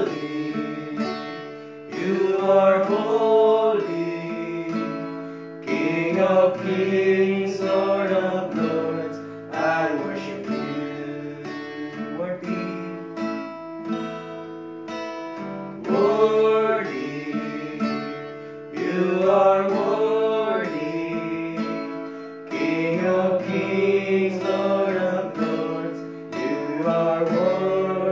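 A man singing a worship song while playing a strummed acoustic guitar, in phrases of a few seconds each.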